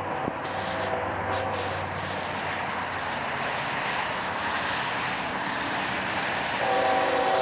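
Norfolk Southern GE diesel locomotives, an ES40DC and an AC44C6M, approaching at speed with a steady roar of engines and wheels that grows slowly louder. Near the end the lead locomotive's air horn starts sounding a steady chord.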